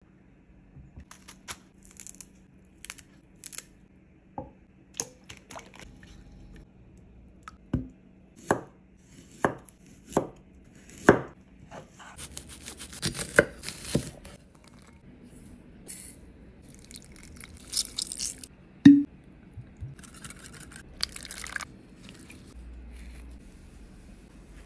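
Kitchen knife slicing radishes on a wooden cutting board: a run of five sharp chops about a second apart, among lighter clicks and knocks of food and utensils being handled. Stretches of scraping and rustling come in the second half, with one loud knock a little past the middle.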